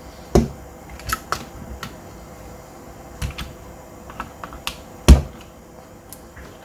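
Irregular clicks and clacks of small metal and plastic parts being handled while stripping down a Golden Eagle Hi-Capa 4.3 gas-blowback gel blaster pistol, with a louder knock near the start and the loudest about five seconds in.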